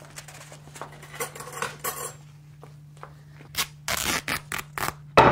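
Linen wrapping being cut and torn open with scissors or a knife: faint rustling at first, then a quick run of sharp snips and rips in the last second and a half, the loudest right at the end.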